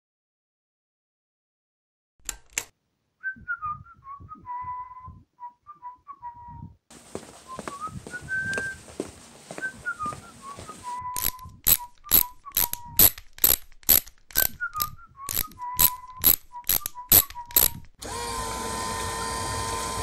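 A man whistling a short tune that he repeats several times while walking, with sharp footsteps about twice a second that grow louder partway through. Near the end the whistling and steps stop and a steady electrical hum takes over.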